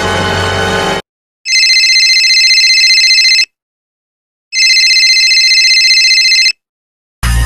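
Telephone ringing twice: two rings of about two seconds each, a second apart, with a high, fast-trilling tone. A music clip cuts off about a second in, and another starts near the end.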